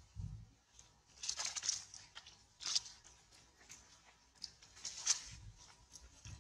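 Leafy twigs rustling and crackling in short bursts, several times, as a baby macaque climbs and pulls on the branches, with a few low bumps.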